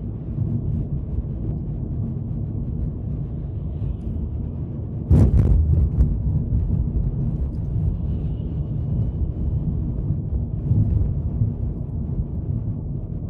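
Car driving along a city street: steady low road and wind rumble, with a sudden louder thump about five seconds in.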